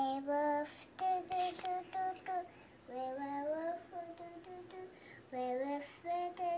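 A young child singing a simple tune to herself in short held notes, some sliding upward, in brief phrases with pauses between.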